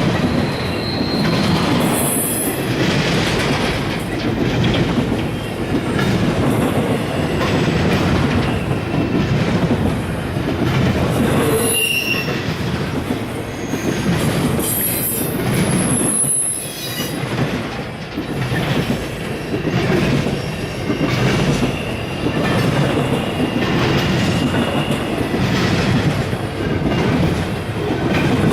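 Freight train cars rolling past at close range, their steel wheels clattering steadily over the rails, with a few brief high-pitched wheel squeals and a fainter drawn-out squeal in the second half.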